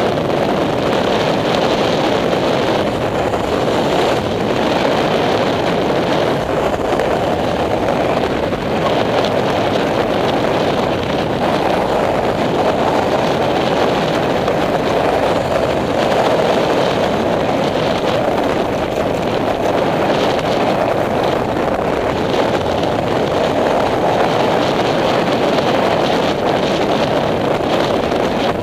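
Steady rush of wind on the microphone mixed with tyre and road noise from a moving vehicle, even throughout with no clear engine note.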